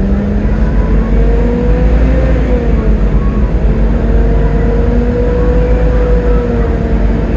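Volvo B7TL double-decker bus's engine running under way, with a steady whine that rises slightly about two seconds in, dips, then holds over a heavy low rumble.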